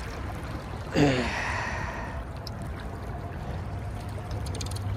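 Steady rush of flowing stream water over a low steady hum, with a brief falling vocal grunt from the angler about a second in.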